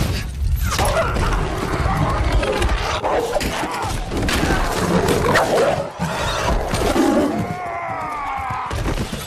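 Film battle sound of a mounted charge: galloping horses and a run of sharp crashing impacts, with a horse whinnying about seven seconds in.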